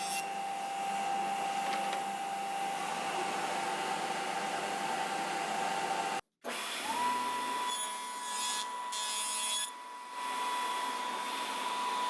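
Electric power tool running with a steady whine, working wood. About six seconds in it stops dead for a moment, then spins up again and runs steadily at a slightly higher pitch.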